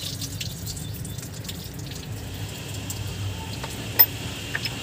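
Water trickling and dripping down an engine block, with scattered small drip ticks and one sharp click about four seconds in.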